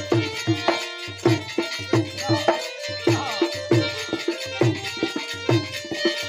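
Instrumental interlude of a folk bhajan: a dholak hand drum beats a quick, steady rhythm under sustained harmonium tones.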